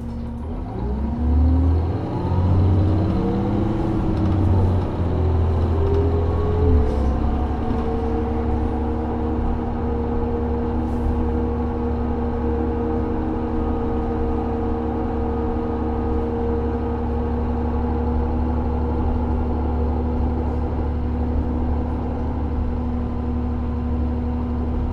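Cummins ISL diesel engine and Allison automatic transmission of a 2003 New Flyer D40LF transit bus, heard from inside the bus, accelerating from low speed. The pitch rises and drops back several times as the transmission upshifts over the first seven seconds or so, then settles into a steady drone at cruising speed.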